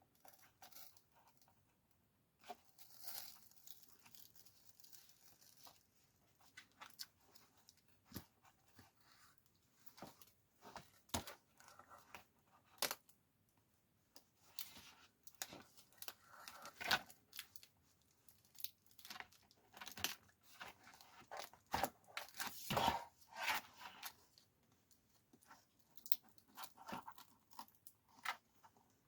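Plastic card prying along the edge of a cracked, taped-over tablet touch screen: faint scattered clicks, crackles and short scraping, tearing sounds as the adhesive seam gives.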